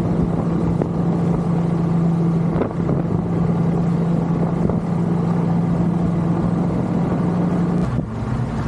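Motorboat engine running steadily with the boat under way, over rushing wind and water noise. Near the end the engine note drops to a lower pitch.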